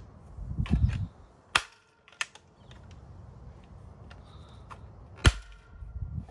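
3D-printed plastic bike rack being handled and its over-center toggle latches snapped shut on the seat post: handling rustle near the start, then a few sharp plastic clicks, the loudest about five seconds in.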